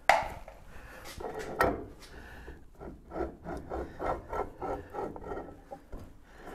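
Two sharp knocks, then rhythmic metal scraping, about three to four strokes a second, as the full-floating rear axle shaft of a 1914 Studebaker SC-4 is worked back and forth and drawn out of its wheel hub.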